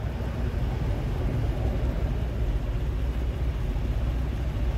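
Wind buffeting the microphone outdoors: a steady, gusty low rumble with a light hiss above it.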